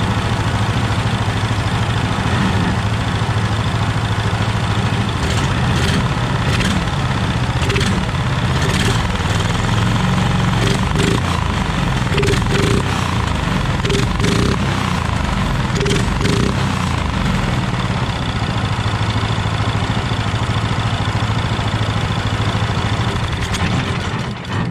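Harbor Freight Predator 420cc (13 hp) single-cylinder engine running steadily on its stock exhaust, freshly fitted with a new jet and air filter, with no bogging. A few short clicks come through in the middle, and it cuts off suddenly at the very end.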